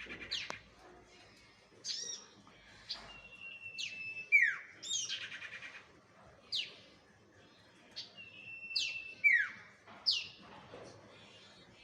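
Bird lure call (suara pikat): sharp high whistles that slide steeply downward, some ending in a short held note, repeated every second or two, with faint rapid trills between.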